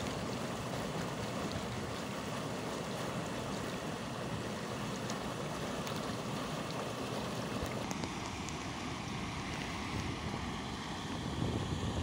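Mountain stream rushing over boulders in a small cascade into a shallow pool: a steady rush of water.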